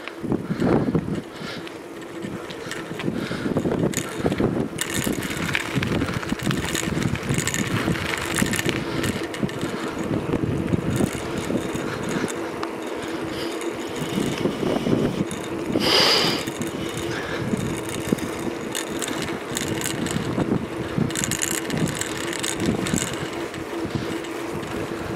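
Bicycle riding along a tarmac road: tyre noise with continual rattling and clicking from the bike, and a steady hum underneath. A brief louder sound cuts through about sixteen seconds in.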